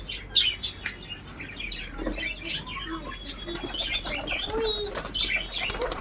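Pigeons flapping their wings close by, with small cage birds chirping in short bursts throughout.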